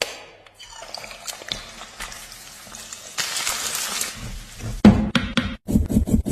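Water running or being poured in a kitchen, a steady splashing hiss that swells for about a second past the midpoint. It ends in a short run of knocks near the end.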